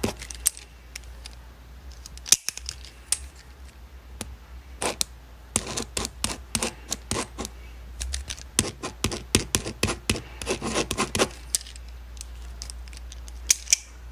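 Ballpoint pen writing on paper: quick scratchy strokes and taps in bursts, with short pauses around the fourth second and again near the end.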